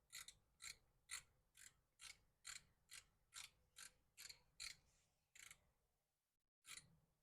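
Faint, evenly paced ratchet clicks, about two a second, from a screen door's spring tensioning mechanism as it is worked up and down to wind it tighter. The clicks pause briefly near the end, then start again.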